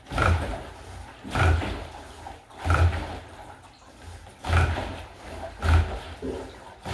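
Water rowing machine pulled stroke after stroke: five surges of water churning in the tank, each a short low rush. The paddles do not turn fully on each pull because the broken clutch wheel is slipping.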